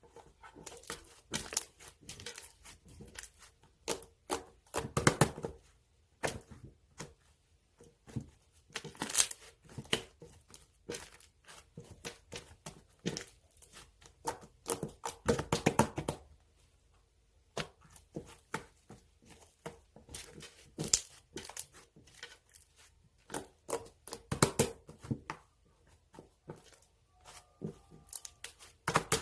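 Crinkling and tearing of Mychew chewy-candy wrappers as clumped-together candies are pulled apart and unwrapped by hand, in irregular bursts of crackling with several louder spells.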